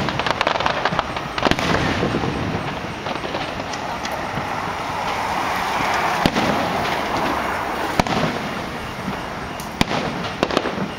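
Aerial fireworks shells bursting: sharp bangs at irregular intervals, a few seconds apart, with several in quick succession near the end, over a steady wash of noise.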